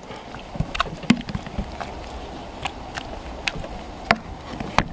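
A slotted metal spoon mashing boiled tapioca with ground coconut in a pot: irregular knocks and scrapes of the spoon against the pot, about a dozen, over a low wind rumble on the microphone.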